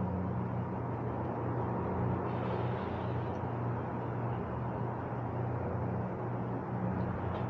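Steady low background hum with no distinct events: a running motor or traffic-like drone.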